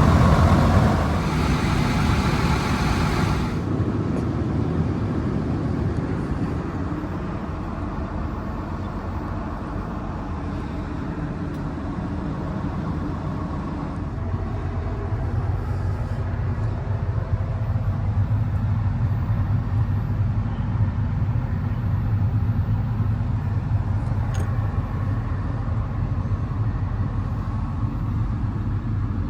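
The Link-Belt 355X4S excavator's 205 hp Isuzu diesel engine running steadily. A louder hiss sits over it for the first three and a half seconds, and the low engine note grows stronger about halfway through.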